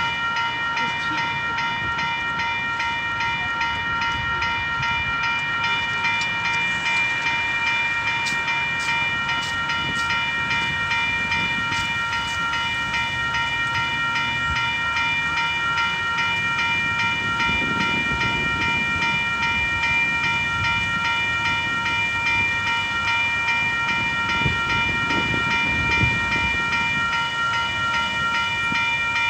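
Railway level-crossing warning bell ringing steadily, an electronic ring repeated evenly, signalling that a train is approaching. A few sharp clicks come about eight to twelve seconds in, and low rumbles come later.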